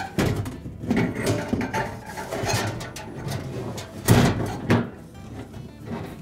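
Refrigerator's freezer evaporator cover being worked into place inside the freezer compartment, scraping and knocking against the liner and shelf clips, with a louder bump about four seconds in.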